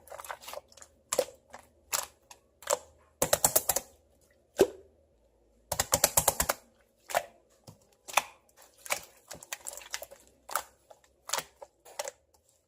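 Slime being squeezed and pressed by hand, making irregular sharp sticky clicks and pops, with two quick rattling runs of clicks about three and six seconds in.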